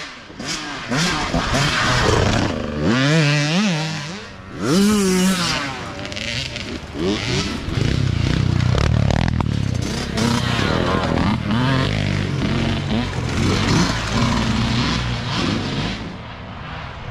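Youth dirt bike engines revving up and down as riders come along the trail, one bike passing close about eight seconds in.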